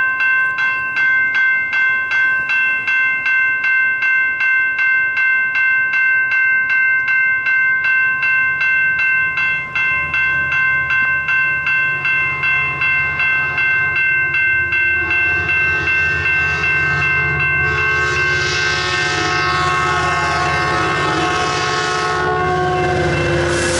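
Grade-crossing warning bell ringing about twice a second. A low rumble builds from about ten seconds in as a Metrolink commuter train approaches. From about fifteen seconds in, the train's multi-tone horn sounds and covers the bell to the end.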